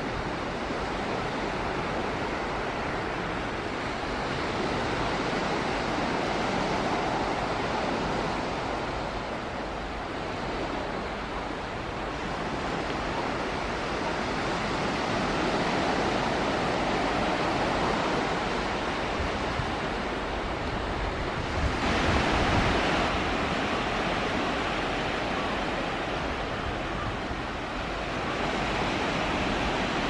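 Strong sea breeze blowing across the microphone, with small waves washing onto a pebble beach. The rushing swells and eases, loudest about twenty-two seconds in.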